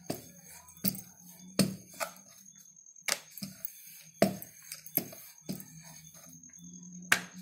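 Wooden rolling pin rolling out a stuffed paratha on a wooden rolling board, with irregular hard wooden knocks and clacks, about one every half second to second, as the pin and board strike each other.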